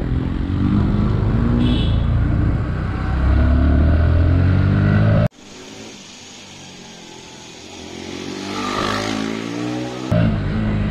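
Motorcycle engine running as it is ridden, rising in pitch as the rider accelerates about three seconds in. It breaks off at a cut to a quieter stretch where a motorcycle is faintly heard passing. The loud engine sound comes back near the end.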